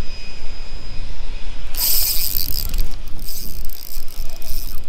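Fishing reel ratcheting in a rasping spell about two seconds in, then in shorter spurts, over steady wind rumble on the microphone.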